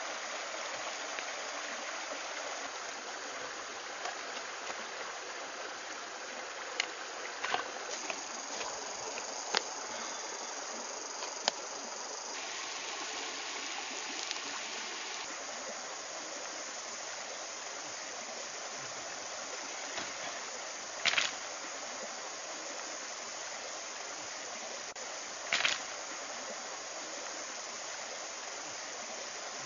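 Steady rush of a shallow rocky stream, with a few sharp clicks scattered through it and two louder short knocks about two-thirds of the way in, a few seconds apart.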